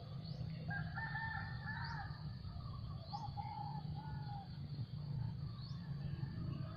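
A rooster crowing about a second in, with a second shorter call a couple of seconds later, over a steady low rumble and short rising chirps repeating high up.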